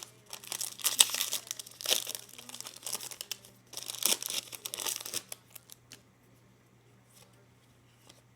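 A trading-card pack's foil wrapper crinkling and tearing open for about five seconds, followed by a few faint clicks of cards being handled.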